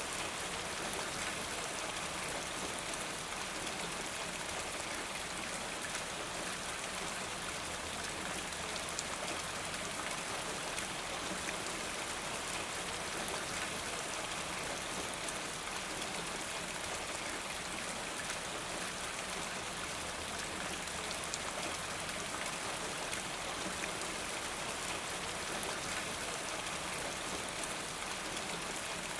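Steady rain falling, a dense, even patter of drops that holds unchanged throughout.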